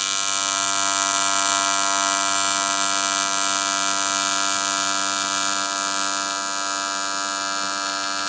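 AC TIG welding arc buzzing steadily while a bead is laid on aluminum intercooler piping.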